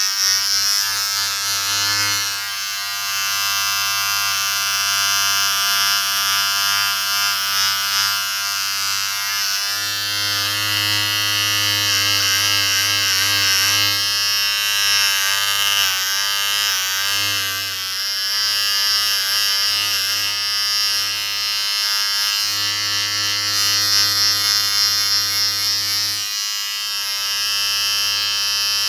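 Electric shaver or hair clipper running continuously with a steady buzz that wavers slightly in pitch now and then.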